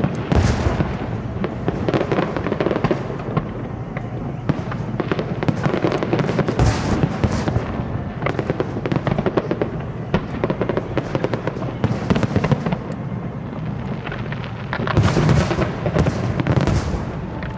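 Aerial fireworks going off in a continuous rapid rattle of bangs and crackles, with heavier bursts of crackling just after the start, about a third of the way in, and near the end.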